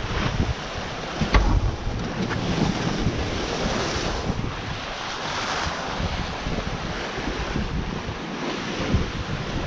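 Wind buffeting the microphone and the sea rushing past the hull of a racing sailboat, with a sharp thump about a second and a half in.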